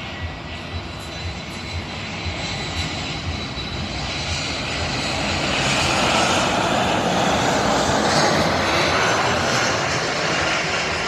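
Airliner's engines heard as it passes close by: a steady engine noise with a thin high whine, swelling to its loudest a little past the middle and easing slightly near the end.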